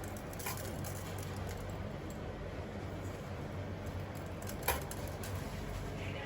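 Light clicks and taps of sprinkles being added to a chocolate-coated cake pop, one sharper click a little before the end, over a steady low room hum.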